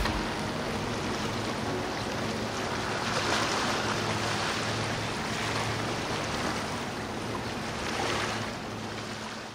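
Ocean surf and rushing water with a faint low steady hum, swelling a few times and fading out near the end.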